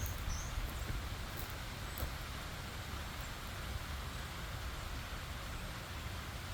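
Stream water running steadily, with a low rumble underneath and a brief high bird chirp near the start.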